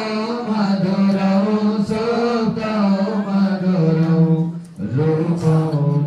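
A man's voice chanting a devotional Hindu prayer in long, held melodic notes, with a short break for breath about five seconds in.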